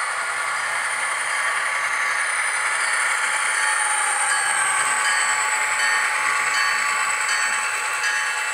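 Scale Trains model of two Pennsylvania Railroad SD45 diesel locomotives pulling freight cars past on sectional track: a steady hissing run with no deep bass, growing a little louder as the locomotives go by, with faint regular clicks in the second half.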